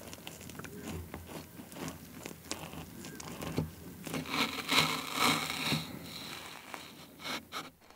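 Knife and fork cutting into a strawberry pavlova, its crisp meringue base crackling in many soft quick clicks, busiest about halfway through.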